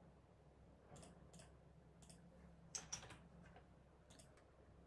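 Faint scattered clicks and taps of a computer keyboard and mouse over near silence, the two clearest a moment apart about three seconds in.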